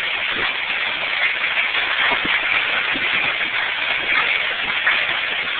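Steady storm noise of heavy rain and wind: a dense, even hiss with faint scattered ticks.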